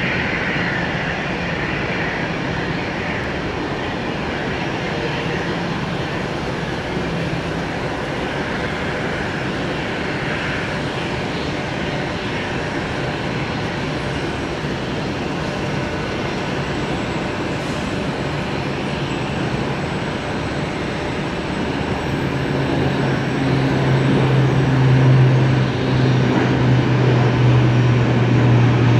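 Aircraft engines at takeoff power: a steady rushing noise, joined about 22 seconds in by a deep steady drone as it grows louder.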